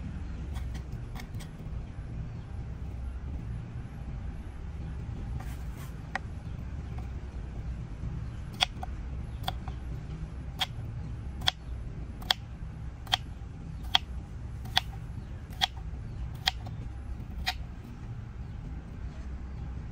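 A run of about a dozen sharp clicks, evenly spaced a little under a second apart, starting near the middle and stopping shortly before the end, over a steady low rumble.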